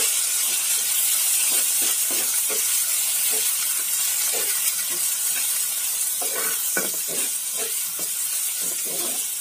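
Onions, garlic and green chillies sizzling in hot mustard oil in a frying pan, with a metal spatula scraping and stirring across the pan in repeated short strokes.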